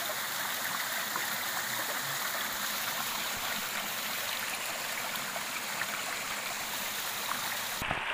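Water rushing steadily over a small waterfall, a continuous hiss. Its upper part thins out abruptly just before the end.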